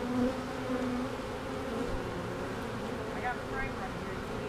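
A swarm of honeybees buzzing at a hive entrance: a steady, low drone of many wings.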